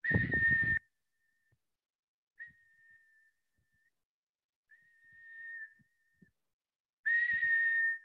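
A person whistling an imitation of the common iora's call: long whistles held level at one high pitch, a loud one at the start and another near the end, with fainter ones between.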